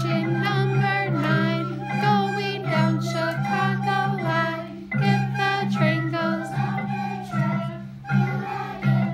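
Group of children singing a song together, accompanied by wooden Orff xylophones and recorders.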